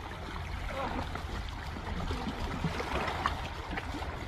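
Harbour water lapping and splashing in the rocky shallows, a steady wash with a low rumble underneath and faint distant voices.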